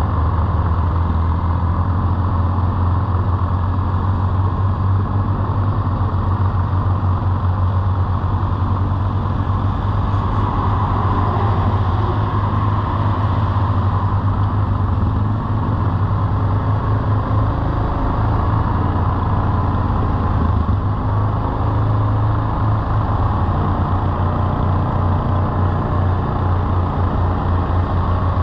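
ATV engine running steadily while riding along a gravel road, heard through a helmet-mounted GoPro with wind rushing over the microphone.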